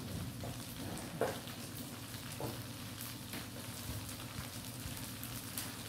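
Quail eggs sizzling in a pan in a fish-sauce glaze that is cooking down nearly dry, with a few knocks of the stirring utensil against the pan.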